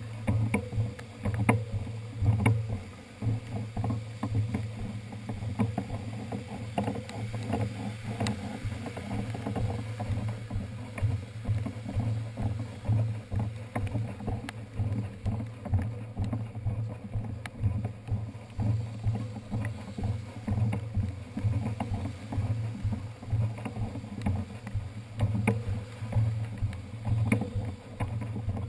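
Bicycle with a flat rear tyre being wheeled over wet pavement, picked up through a handlebar-mounted GoPro Hero 2 in its housing: a steady low rumble with an uneven, rapidly changing level and many small knocks and rattles.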